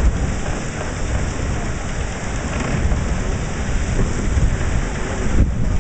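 Rushing hiss of spray and water streaming off the hull of an 18 m proa sailing fast on a broad reach, over a heavy, gusting rumble of wind on the microphone.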